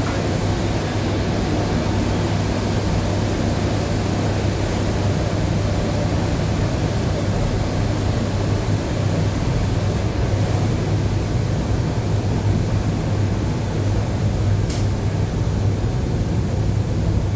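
ED9E electric train running steadily, heard inside the passenger car: a continuous low drone and rumble of wheels on rail, with one faint click about fifteen seconds in.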